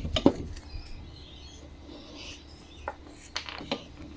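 Hand work on a Honda lawnmower's recoil pull starter. A few sharp clicks and knocks, the loudest pair near the start and a few lighter taps later on.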